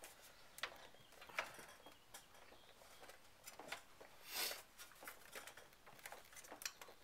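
Faint, scattered light clicks and scrapes of a sheet-metal drive bracket being pushed and seated in a small computer case, with one louder, slightly longer scrape about four and a half seconds in.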